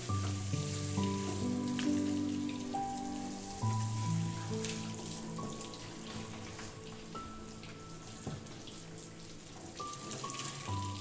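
Background music of slow, held notes that change every second or so, over a faint hiss with scattered light ticks.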